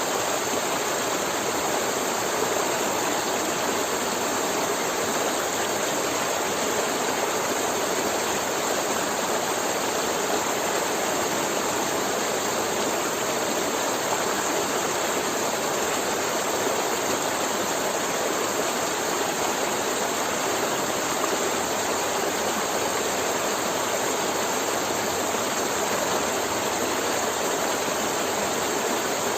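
River water flowing and rushing over rocks, a steady even rush with no breaks.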